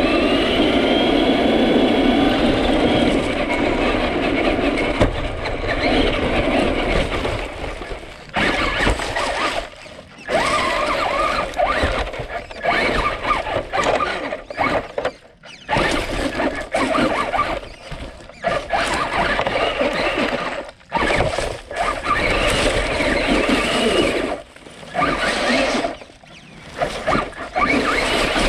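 Traxxas Rustler 4x4 RC car's electric motor and gear drivetrain whining, heard from a camera on the car. The pitch rises under throttle at the start, then comes in repeated bursts that cut off suddenly every few seconds as the throttle is let off and reapplied, with rattling noise from the chassis on rough ground.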